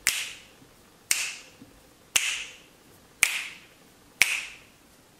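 Five sharp clicks at an even pace, about one a second, each trailing off briefly.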